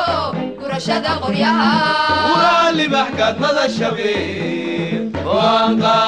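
Background music: a song with a single singing voice gliding and bending in pitch over a steady bass beat.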